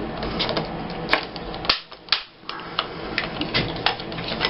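Irregular plastic clicking and clattering of craft paper punches being handled and rummaged through in their storage box.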